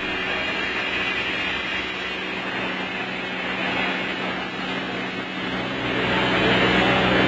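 CNC plasma cutter running: a steady hiss over a low electrical hum, getting louder near the end.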